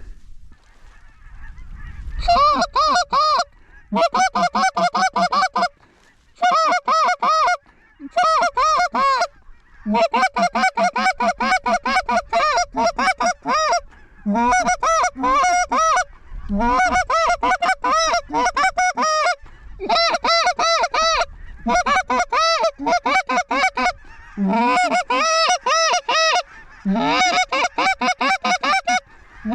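Canada goose calling: rapid honks and clucks in runs of one to two seconds with short breaks, some runs starting with a short rising moan.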